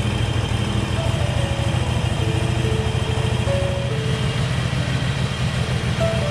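Harley-Davidson Iron 883's air-cooled V-twin engine running steadily with a low pulsing rumble, just after starting on a replacement battery.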